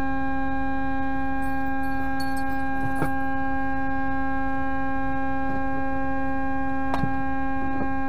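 Semi-truck air horn held in one long, steady blast.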